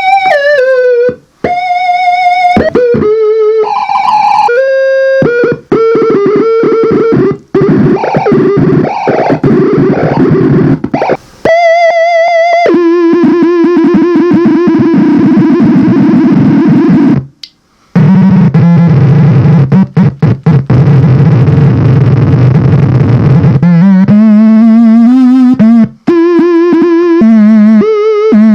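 Homemade analog synthesizer played through conductive slime: buzzy electronic tones jump from pitch to pitch, warble, and cut out abruptly, with stretches of harsh, noisy distortion as the slime bends and disrupts the signal.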